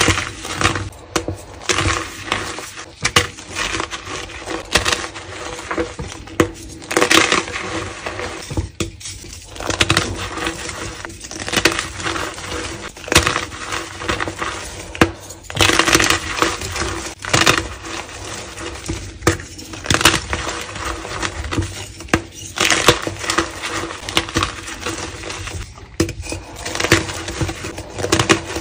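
Pieces of dyed gym chalk crushed and crumbled in bare hands: a run of crisp crunches and cracks in uneven clusters, one cluster every second or two.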